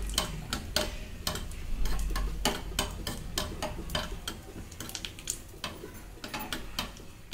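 Steel spoon stirring cashews frying in ghee in a small metal pan, clicking and scraping against the pan about two to three times a second.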